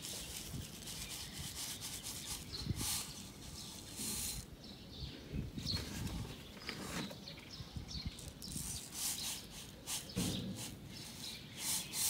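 Akadama soil granules scooped and poured over a seed tray: gritty rattling and scraping in irregular bursts as a layer is spread to cover sown Podocarpus seeds.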